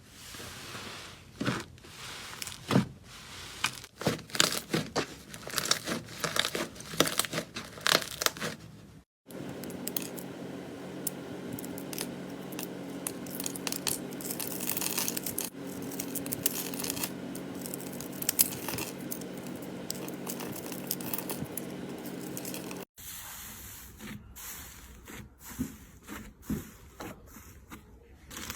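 Slime being worked by hand in three short clips: dense crackling and tearing sounds with many small pops. A steady low hum runs under the middle clip.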